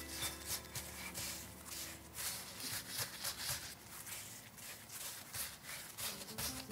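Gloved hands rolling bread dough up on a wooden pastry board: a run of soft, irregular rubbing and brushing strokes as the dough triangle is rolled into a crescent roll.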